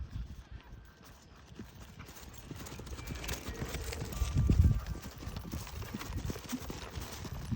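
Hoofbeats of a ridden racking horse in a quick, even rhythm, growing louder as it comes closer and loudest about halfway through.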